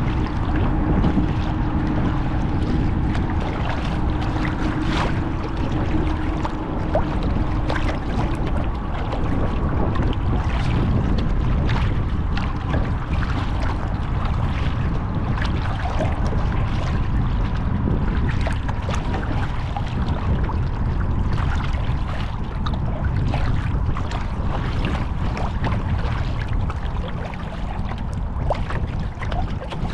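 Wind buffeting a deck-mounted microphone on a kayak, with the splash of paddle strokes and choppy water slapping the hull in irregular bursts.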